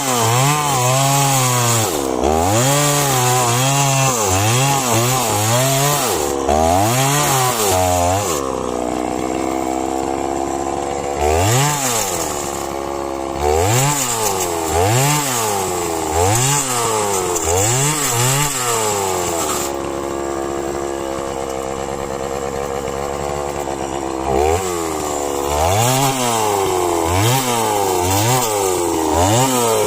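Chainsaw running while cutting a tree, its engine pitch rising and falling over and over, about once a second, as the throttle is worked, with two steadier stretches at a lower pitch, one about a third of the way in and one past the middle.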